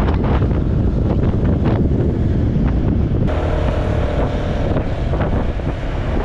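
Wind buffeting the microphone, a loud, steady rumble. A little over three seconds in the sound changes abruptly, and a faint steady hum comes through the wind for about two seconds.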